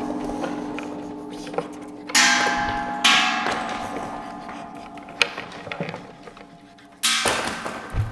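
Struck metal percussion ringing: a strike about two seconds in, another a second later, and a third near the end. Each leaves several steady metallic tones that slowly die away.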